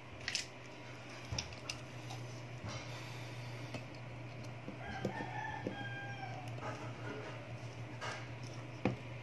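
A rooster crows once, about five seconds in, over a steady low hum. Several small sharp clicks of a screwdriver and metal phone parts being handled come and go, the loudest near the start and near the end.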